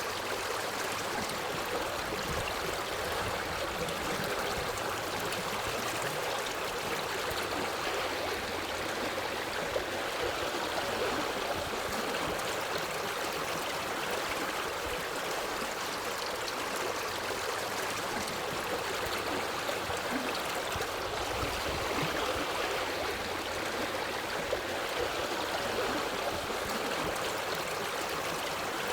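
Forest stream flowing steadily, a continuous babble and trickle of running water.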